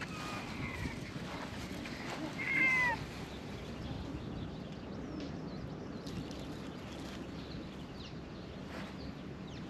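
A cat meowing twice, the second meow louder, each call dropping in pitch at its end.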